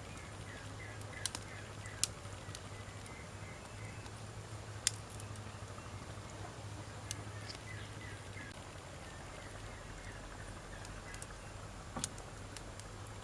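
Wood fire crackling, with a few sharp single pops spread through it, the loudest about two and five seconds in, over a faint steady hiss.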